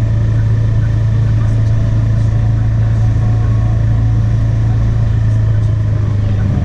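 Motorbike engine running at a steady low speed, a constant low drone.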